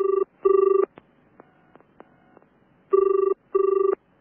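Telephone ringing with the British double-ring pattern: two pairs of short steady rings, the pairs about two seconds apart, as a call goes through before it is answered.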